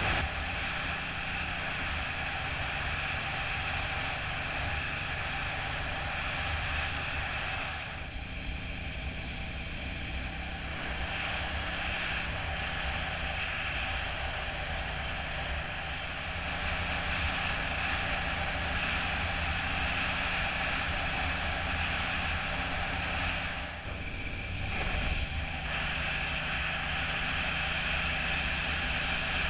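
Suzuki Boulevard cruiser motorcycle ridden at highway speed: steady wind rush over the handlebar-mounted microphone with the engine's even drone underneath. The noise dips briefly twice.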